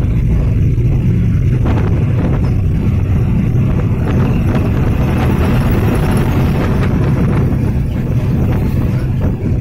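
Steady low rumble of a moving bus, engine and tyre noise heard from inside the cabin as it travels along the road.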